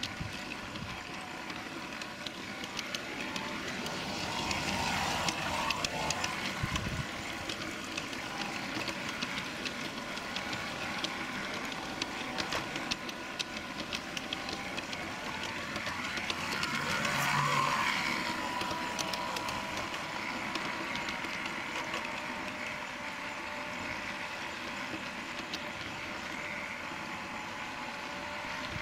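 A 16mm-scale live-steam garden railway locomotive running along its track, heard from on board: a steady hiss with many sharp clicks. It swells briefly louder a little past halfway.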